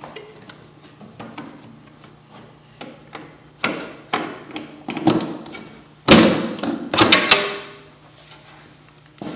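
Snowmobile clutch cover being unlatched and pulled off by hand: scattered clicks and knocks, then a louder clatter of knocks about six to seven and a half seconds in.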